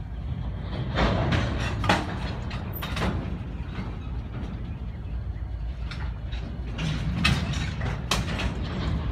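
Freight train cars rolling past at low speed: a steady low rumble broken by sharp metallic clanks and bangs, loudest about a second in, near two seconds, and again around seven to eight seconds.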